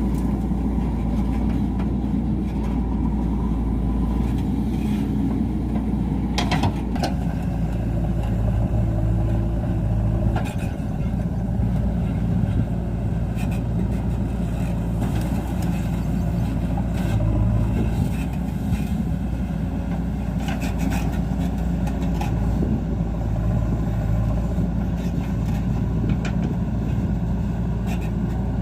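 Heavy diesel engine running steadily, with a few short metallic knocks over it.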